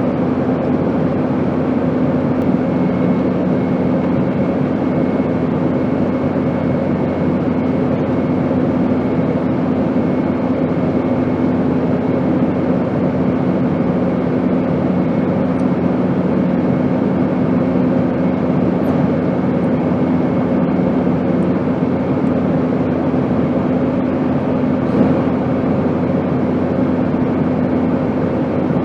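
Airplane engine drone: a steady rushing noise with a low, even hum running under it, unchanging throughout.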